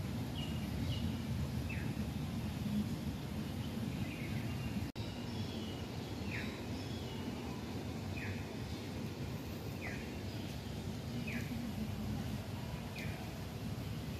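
A bird repeating a short falling chirp every one and a half to two seconds over a steady low outdoor rumble. The sound drops out for an instant about five seconds in.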